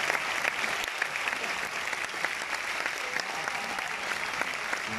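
Theatre audience applauding, a dense steady patter of many hands clapping that eases slightly over the few seconds.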